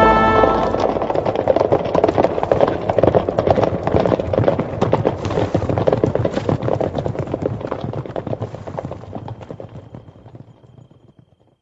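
Hoofbeats of galloping horses, a dense irregular clatter that fades away over the last few seconds until it is gone.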